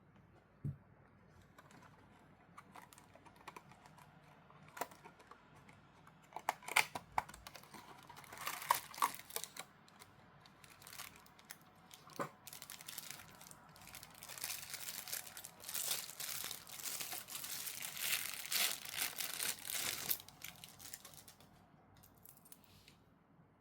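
Packaging being unwrapped by hand: scattered clicks and taps, then a long stretch of crinkling and rustling in the second half.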